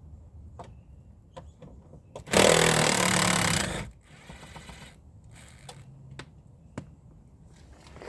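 Power tool running in one loud burst of about a second and a half, a couple of seconds in, followed by a weaker run. Light clicks and knocks from hand work on the car come before and after it.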